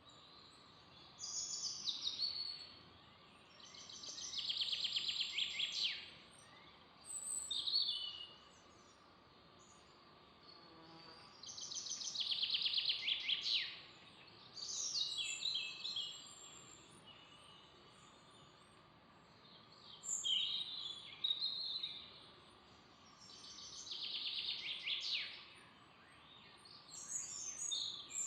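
A songbird singing: about eight short, fast trilled phrases, each dropping in pitch, repeated every few seconds with pauses between. Beneath it runs a faint steady high hum.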